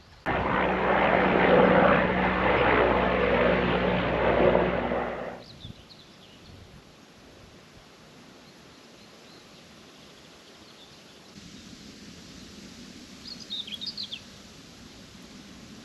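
A loud, steady engine drone starts abruptly and cuts off suddenly after about five seconds. Quiet outdoor ambience follows, with a brief burst of bird chirps near the end.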